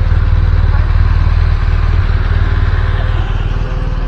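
BMW police motorcycle engines idling close by, a steady low throb that eases a little near the end.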